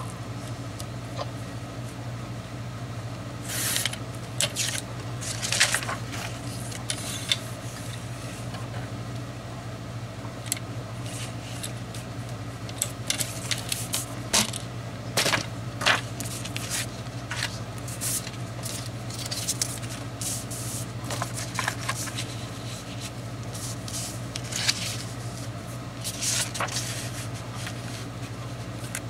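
Sheets of scrapbook paper being handled: irregular rustling, sliding and light scraping with scattered clicks, over a steady low hum.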